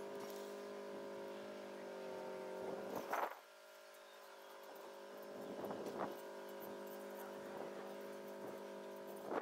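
A steady hum with several pitches that drops away for a moment a little after three seconds in, then comes back. Over it, a few short rasps from zip ties being worked on the wire hardware-cloth screen, about three and six seconds in.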